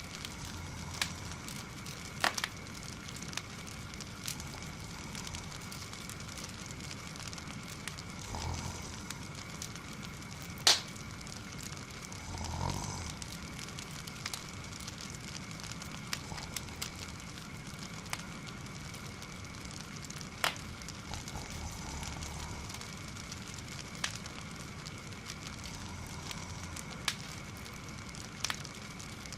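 Wood fire crackling in a fireplace: a steady hiss broken by irregular sharp pops, the loudest just before halfway. Soft snoring swells up every few seconds beneath it.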